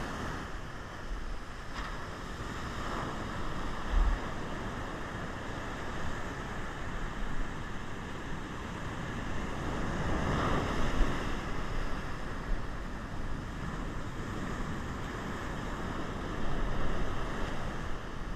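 Heavy ocean surf breaking and washing up a beach, with wind buffeting the microphone; the surf swells louder about ten seconds in.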